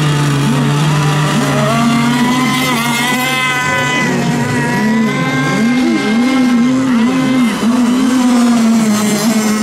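Several radio-controlled racing boats running at full speed, their motors whining and rising and falling in pitch over one another as they pass and turn.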